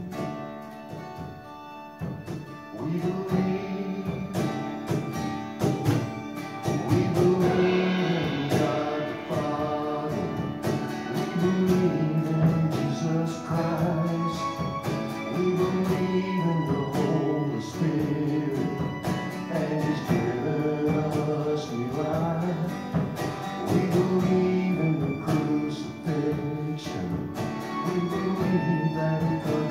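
Live worship music without lyrics: a small band playing an instrumental passage, guitar accompaniment under a melody line that rises and falls.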